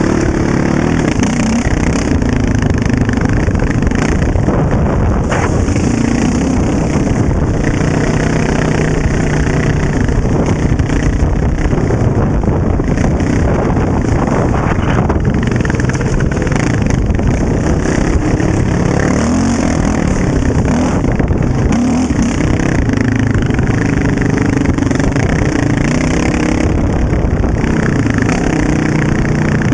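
Honda TRX700XX ATV's single-cylinder four-stroke engine running continuously on a dirt trail, its pitch rising and falling as the throttle is worked.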